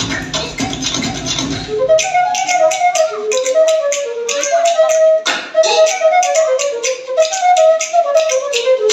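Dance music: after about two seconds the bass drops out, leaving a flute-like melody over a light, quick tapping beat, with a falling swoosh about halfway through.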